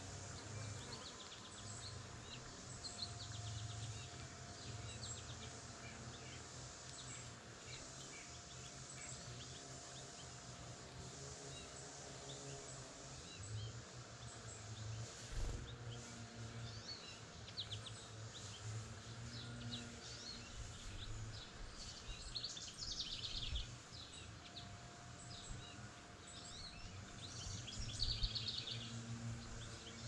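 Small songbirds chirping and calling, with two fast trills, one about two-thirds of the way in and one near the end, over a steady low hum.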